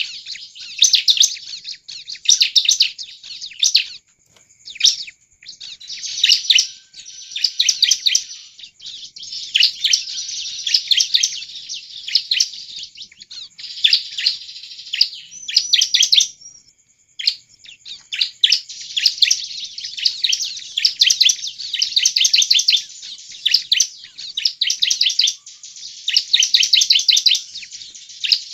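Bar-winged prinia (ciblek) singing in full song: fast trains of sharp, repeated high notes in phrases of a second or two, broken by short pauses.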